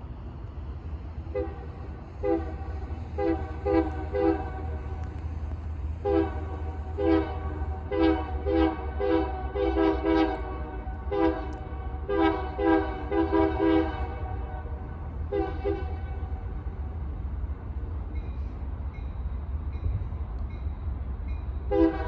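Union Pacific diesel locomotive's multi-chime air horn played as a horn show: many short, rapid blasts, some in quick runs, over the steady low rumble of the approaching locomotive. The horn pauses for several seconds near the end, then starts again.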